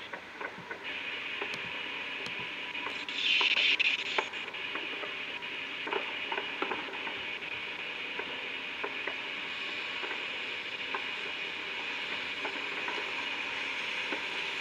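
Distant fireworks crackling and popping over a steady hiss, heard through a railcam's microphone stream, with a louder burst of crackle about three seconds in.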